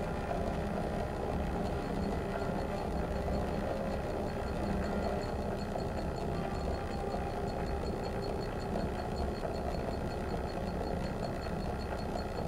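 Steady, low rumbling drone of experimental electronics and amplified sound objects, with a faint, rapid high ticking above it.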